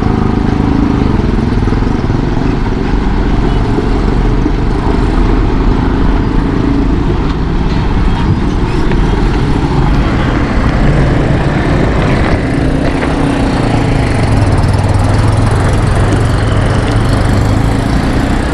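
Motorcycle engine running steadily under way, with continuous road noise.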